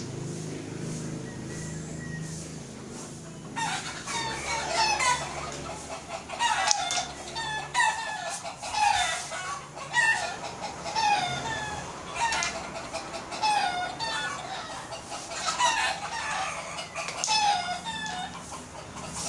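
Chickens clucking, with many short falling calls repeating irregularly about once or twice a second, starting a few seconds in after a low hum.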